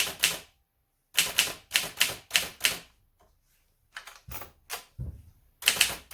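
Restored 1938 Mercedes Superba manual typewriter being typed on: sharp, clicky key and typebar strikes in uneven runs of several, with short pauses between, the keys freshly restored and snappy.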